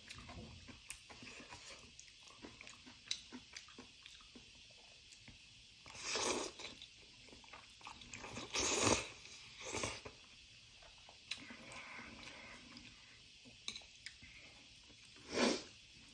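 Close-up chewing and mouth noises of a person eating Chapagetti black-bean instant noodles, with several louder, short noodle slurps, a cluster in the middle and one near the end.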